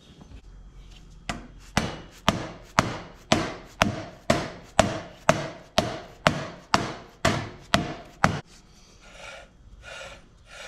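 2005 Honda Recon 250's front brake drum being knocked onto its hub to seat it over the shoes: about fifteen even knocks, two a second, each with a short ring. Softer scraping follows as the drum is worked by hand.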